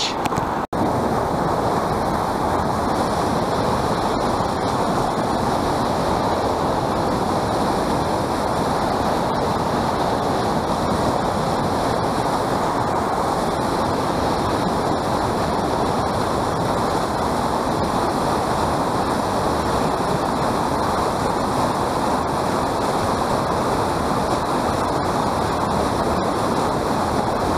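Fast river water rushing over rocks in a small whitewater cascade close to the microphone: a steady, loud rush. It cuts out for an instant less than a second in.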